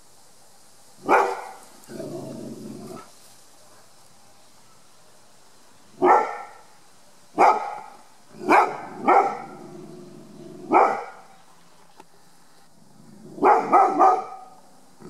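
Rhodesian ridgeback barking in alert. She gives one bark, then five barks about a second apart, then three quick barks in a row near the end.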